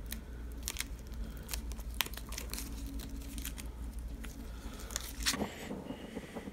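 Self-fusing silicone repair tape being peeled from its roll and clear plastic liner and wrapped around a metal shower hose: a string of small crackles and crinkles.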